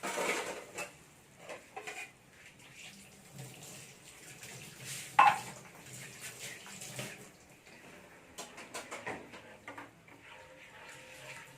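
Canned milk being poured into a pan of roux, with a spoon or spatula clinking and scraping against the pan; one sharp knock about five seconds in is the loudest sound.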